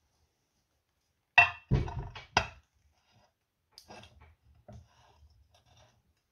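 Clear glass baking dish set down on a granite cutting board: a sharp clink with a brief ring about a second and a half in, a few quick knocks right after, then lighter taps as the dish is shifted into place.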